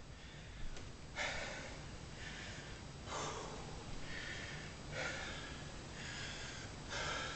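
A man breathing hard, with about four long, forceful breaths a second or two apart, as he strains to bend a 3/8-inch steel bolt by hand.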